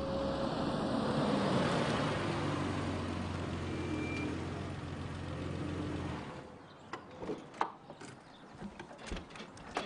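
A Volvo sedan driving slowly into a driveway and pulling up, its engine running with a steady low hum under tyre noise, until the engine is switched off about six seconds in. A few sharp clicks and knocks follow near the end.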